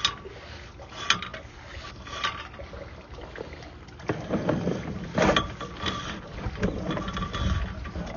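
Sewer inspection camera and its push cable being fed through the sewer line: sharp clicks about once a second, then louder scraping and knocking from about halfway through.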